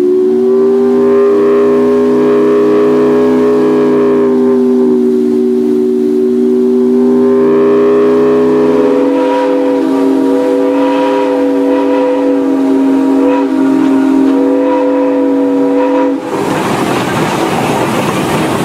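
Climax geared steam locomotive's steam whistle blown in a long, held blast that sounds several notes at once as a chord. The chord shifts about nine seconds in and cuts off suddenly after about sixteen seconds, leaving the noise of the locomotive running.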